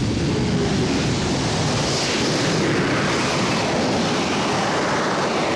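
Harrier jump jet's turbofan at full power as it takes off and climbs away: a loud, steady jet roar whose hiss swells about two seconds in and eases off near the end.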